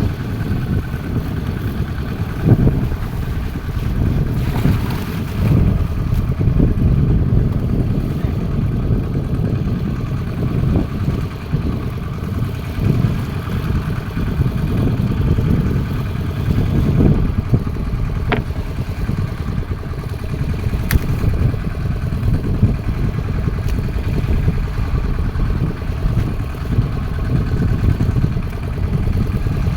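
Steady low rumble aboard a fishing boat at sea, with wind on the microphone and a few sharp knocks.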